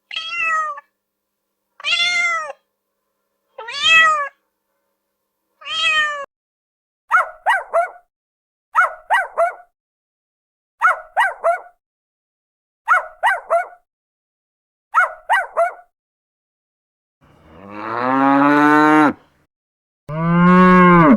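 A cat meowing four times, about two seconds apart, then five bursts of three quick short animal calls, then a cow mooing twice, long and low, near the end.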